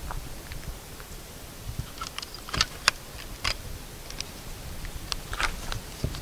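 Handling noise from a handheld camera: fingers rubbing and tapping on its body close to the microphone, giving an irregular scatter of sharp clicks and rustles, a few of them louder.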